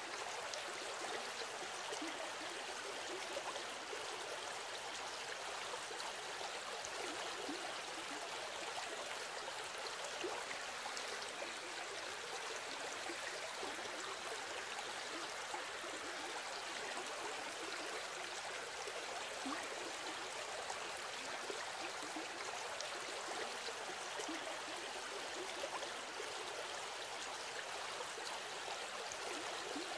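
Steady rushing sound of flowing water, an even hiss with a fine bubbling texture and no other events.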